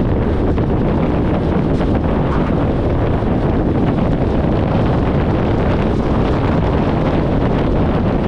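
Steady wind rush buffeting a camera microphone mounted outside a 1994 VW Gol moving at highway speed, blended with a low, even road and tyre rumble.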